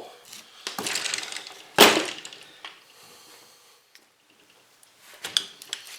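Outboard engine parts being handled on a workbench: a scraping shuffle, then one sharp knock just before two seconds in, and a few light clicks near the end.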